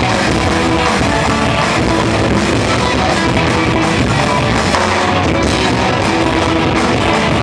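Live rock band playing electric guitars, bass guitar and drum kit, loud and unbroken throughout.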